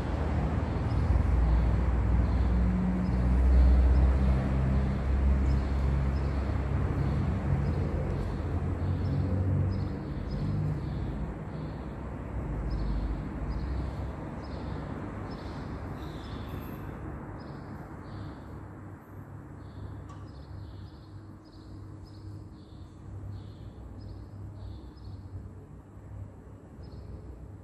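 A low motor rumble, like a vehicle engine, slowly fading away, with short high chirps repeating a little more than once a second.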